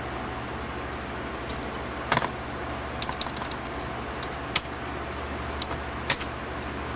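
Computer keyboard keys pressed a handful of times in short clicks, over a steady low hum.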